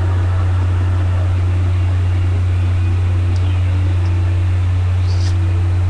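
A loud, steady low hum, with faint brief tones behind it.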